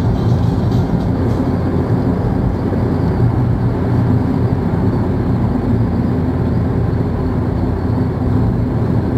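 Steady road rumble of a car driving at a constant speed, heard from inside the cabin: low engine drone and tyre noise with no changes.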